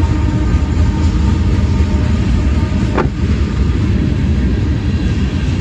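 A freight train's tank cars rolling past, a loud steady rumble of steel wheels on rail, with one short sharp sound about three seconds in.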